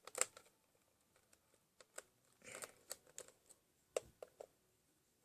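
Faint, scattered clicks and taps of hard plastic parts being handled and pried as a toy robot's legs are taken off, with a short rustle about halfway through.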